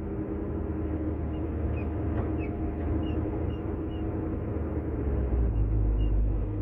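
Caterpillar 320DL excavator's C6 diesel engine running under hydraulic load, a steady low rumble that swells slightly near the end as pump pressure climbs. The engine keeps running through the load without stalling, a sign that the adjusted pump compensators are no longer overloading it.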